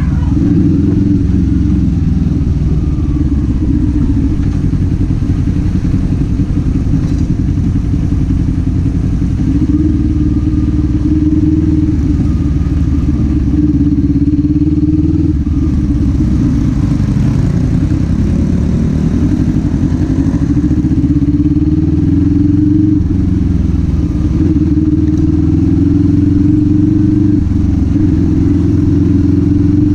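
Kawasaki Z400 parallel-twin engine and exhaust running under way, loud and steady, its note rising and falling gently as the throttle is opened and eased.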